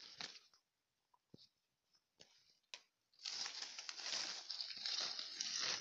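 Leaves and twigs of an orange tree rustling and brushing as they are pushed aside: a few faint brushes at first, then continuous rustling from about three seconds in.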